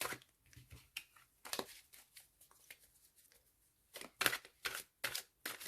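Tarot cards being dealt onto a table: faint rustling and soft taps, then from about four seconds in a quick run of sharp card snaps, about two a second, as each card is laid down.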